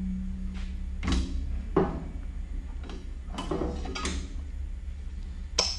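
A large circular HSS cold saw blade being handled on the chamfer grinder's blade holder, giving about six irregular metal knocks and clanks, the loudest near the end. A low machine hum runs under them, louder at the start.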